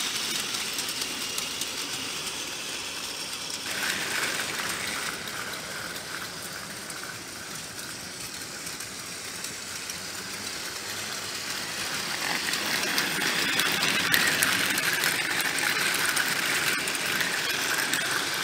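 Plarail motorized Merlin toy locomotive running along plastic track: a steady whir of its small battery motor and gears with a light rattle of wheels on the track, growing louder over the last several seconds.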